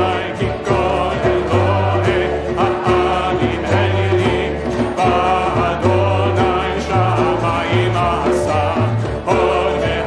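A group of voices singing a Hebrew song together over a hand drum beating out the rhythm, with low bass notes underneath.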